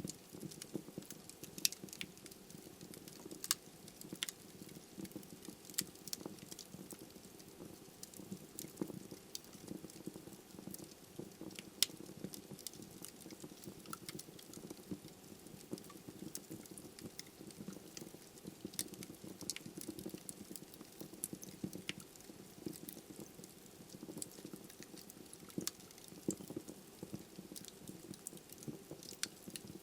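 Wood fire burning in a fireplace: irregular sharp crackles and pops from the logs over a low steady rush of flame, with one louder pop about twelve seconds in.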